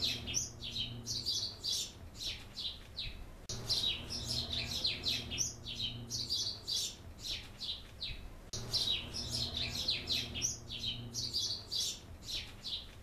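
Birds chirping in quick, high runs of calls over a low steady hum. It is a recorded birdsong track that loops every five seconds or so.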